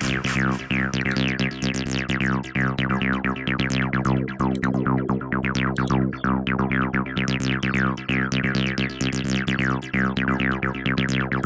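Synthesized sound effect from a Sytrus FM synthesizer preset playing: a steady low chord-like drone under a rapid stream of falling high-pitched zaps, several a second.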